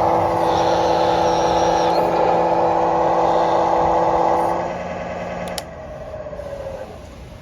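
RC model excavator's electronic sound module playing a simulated diesel engine through its onboard speaker. The engine sound drops about two thirds of the way through, then winds down with a falling tone after a click near the end, as at engine shutdown.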